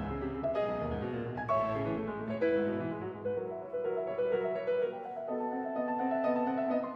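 Background music: piano playing a classical-style melody, with a lower bowed-string line underneath.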